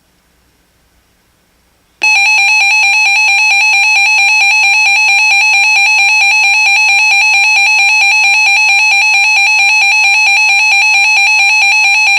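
Weather radio alert tone: a loud, steady, high-pitched alarm that starts abruptly about two seconds in and holds for around ten seconds, announcing an incoming severe thunderstorm warning.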